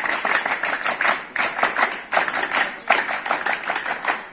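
A group of people clapping their hands together in a steady rhythm, many sharp claps in quick repeating clusters.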